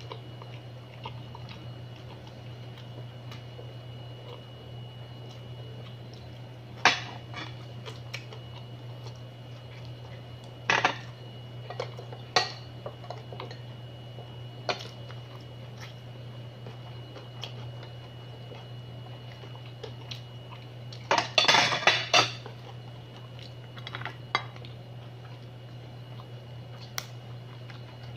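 Scattered sharp clinks and clatter of cutlery and mud-crab shell against a plate as the crab is eaten by hand, with a busy run of clatter about 21 seconds in. A steady low hum lies under it.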